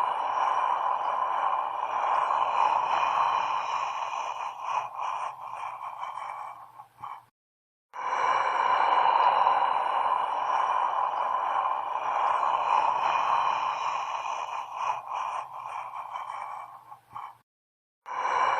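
Eerie horror sound effect: a steady hissing drone with faint high steady tones and a low hum. It flickers and fades out into a brief silence, then the same clip starts again, looping about every ten seconds.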